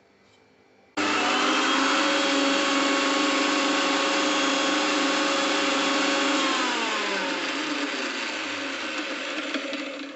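Indian mixer grinder running, coarsely grinding dried red chillies, garlic, black pepper and cumin. The motor starts abruptly about a second in with a steady whine, drops in pitch a little past halfway, and stops near the end.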